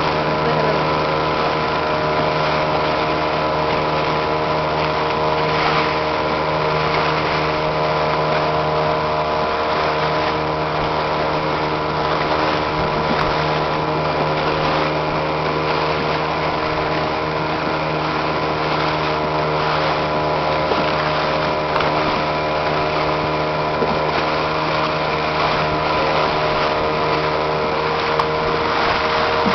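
A small wooden boat's motor running steadily at one constant speed, under a hiss of water and wind.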